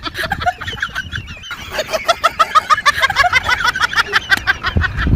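A bird calling in a fast run of short, repeated notes, several a second, starting about a second and a half in.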